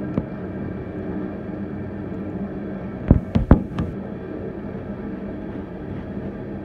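Loaded coal train rolling past: a steady rumble of steel wheels on rail, with a quick run of four or five sharp knocks about three seconds in.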